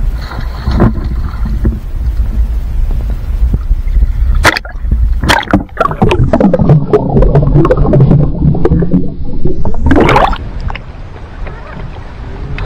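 Water sloshing against the boat and net, then a splash about four and a half seconds in as the microphone goes under the water, followed by muffled bubbling and gurgling heard underwater, and another splash near ten seconds as it comes back out.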